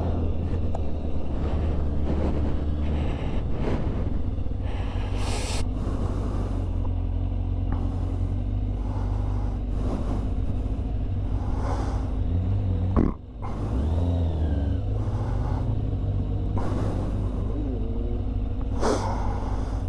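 Motorcycle engine running under heavy wind rumble on the microphone; the engine note rises and falls a few times near the middle, and the audio drops out briefly about thirteen seconds in.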